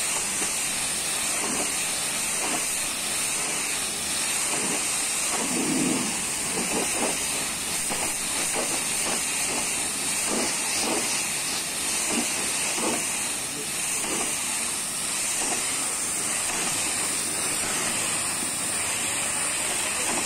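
High-pressure washer lance spraying a water jet against a truck trailer's side panels and wheels: a steady hiss.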